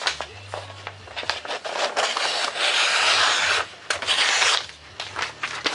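Paper plans rustling and scraping as they are handled and trimmed, with small crinkles and clicks and two longer spells of rustling in the second half.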